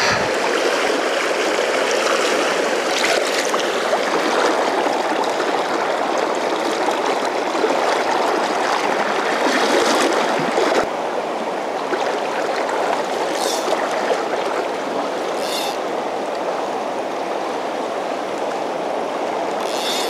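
Steady rushing of a fast river's current over riffles, dropping slightly in level about halfway through.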